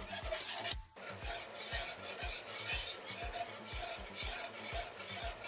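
Wire whisk stirring a thick, slightly lumpy roux-and-broth white sauce in a pot, in strokes about twice a second. The sound breaks off for a moment a little under a second in.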